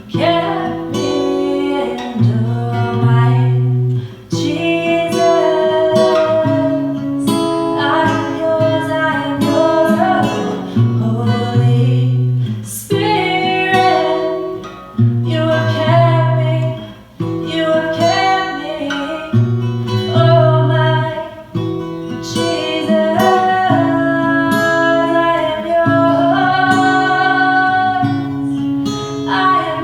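Acoustic guitar strummed in a repeating chord pattern, with a woman singing a slow worship song melody over it.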